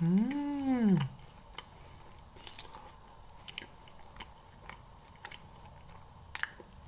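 A person eating custard-filled bread: an appreciative 'mmm' hum in the first second, its pitch rising then falling, followed by soft chewing with small scattered clicks.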